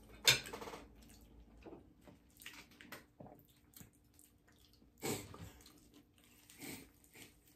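Close-up eating sounds of extra-crispy fried chicken being bitten and chewed: scattered short crunches and wet chewing, with louder bites just after the start and about five seconds in.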